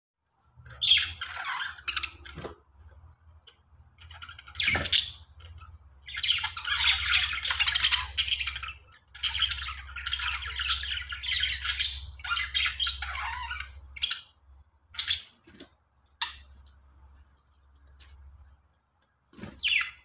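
Budgerigars chirping and warbling. Single sharp chirps come near the start and end, and a dense run of chattering lasts from about six to fourteen seconds in.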